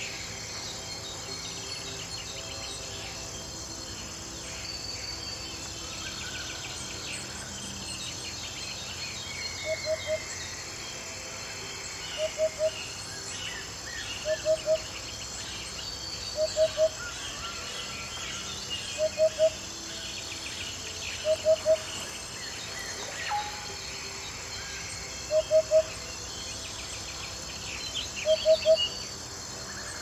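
Steady chorus of insects with scattered bird calls in the background. From about ten seconds in, a louder, low call of two or three quick notes repeats roughly every two seconds.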